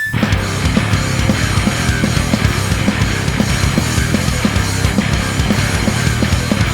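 Loud, aggressive heavy rock band music with no vocals, kicking in at once: distorted guitars over fast, driving drums.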